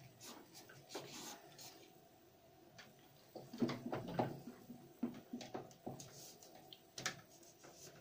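Faint handling noise of a rubber washing-machine drive belt being gripped, pressed together and shifted in the hands, with soft rubs and light knocks that cluster a little before halfway.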